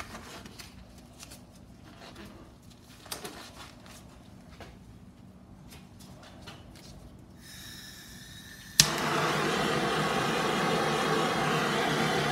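Handheld gas torch being lit: a faint hiss of gas, a sharp igniter click about nine seconds in, then the flame burning with a loud steady hiss. Before that, only small clicks of handling.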